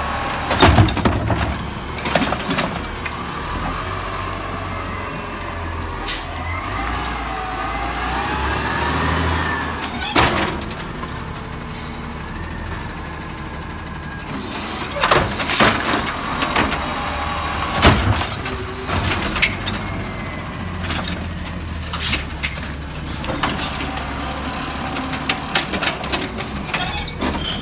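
Garbage truck's automated side-loader arm cycling recycling carts: the diesel engine runs steadily under hydraulic load, with a whine that wavers up and down for a few seconds. Sharp clanks and bangs come at intervals as the carts are gripped, lifted, dumped into the hopper and set back down.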